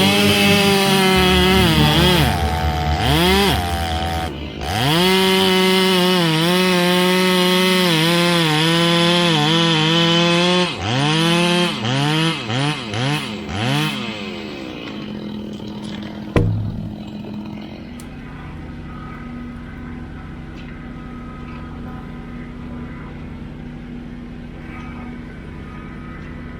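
Gas chainsaw running at full throttle with its pitch sagging and recovering as it cuts, then blipped on and off the throttle several times before dropping to a quieter low running sound; a single sharp knock comes near the middle.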